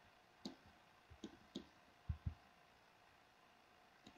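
A handful of faint, irregular clicks from computer keys and mouse buttons over near silence.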